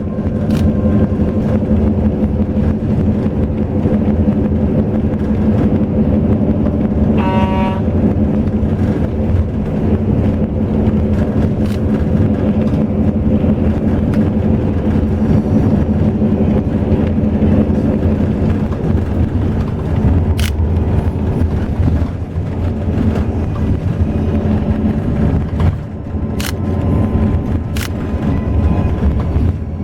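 Highway bus running at speed: a steady engine and road drone. A short pitched beep sounds about seven seconds in, and there are a few sharp clicks near the end.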